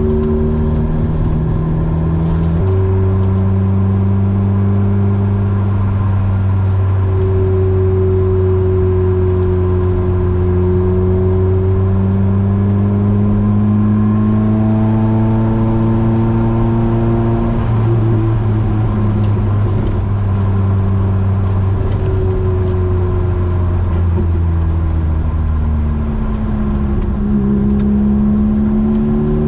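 Opel Speedster's 2.2-litre four-cylinder engine with a Larini decat and stainless back box, pulling steadily at moderate revs. Its pitch rises slowly through the middle and drops back a little past halfway, then eases up and down.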